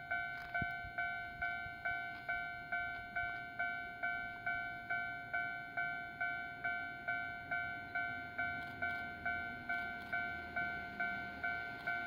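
Japanese railway level-crossing warning bell ringing steadily, a little over two dings a second, each ding fading before the next: the crossing is closed for an approaching train.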